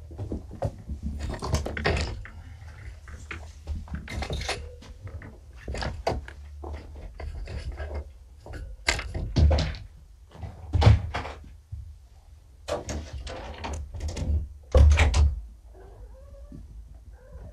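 Kittens moving about close to the microphone: a run of knocks, thumps and rustles, the loudest about nine, eleven and fifteen seconds in, over a low hum.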